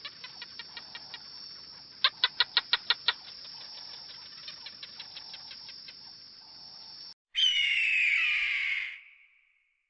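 A fast train of short, high chirps over a thin steady high whine, with a louder run of about eight chirps around two seconds in. About seven seconds in it cuts off, and a single harsh, falling bird-of-prey scream lasts about a second and a half before fading out.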